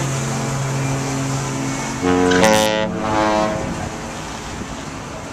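Cruise ship horn sounding: a long, steady low note, then about two seconds in a louder, brighter note that fades away a couple of seconds later.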